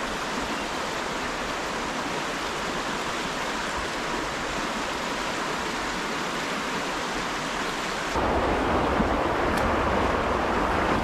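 Steady rush of flowing river water. About eight seconds in it abruptly becomes louder, with a deeper rumble.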